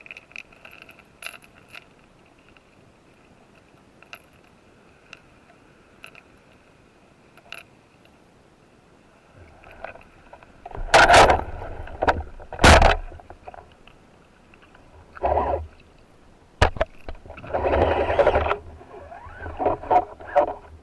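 Underwater sound picked up by a camera mounted on a band-powered speargun. For the first half there are only faint scattered clicks. Then, from about ten seconds in, the gun is fired and handled, giving two sharp loud knocks followed by several rushing, rattling bursts.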